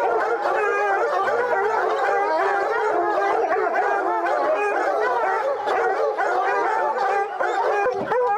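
A pack of bear-hunting hounds baying and howling together, many voices overlapping without a break.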